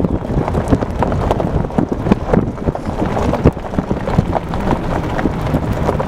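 Loud wind buffeting the microphone and road rumble inside a moving vehicle, with frequent small rattles and knocks.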